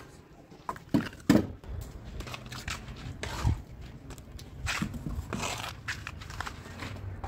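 Steel trowel scraping and spreading white cement across a wall in irregular strokes, with two sharp knocks about a second in.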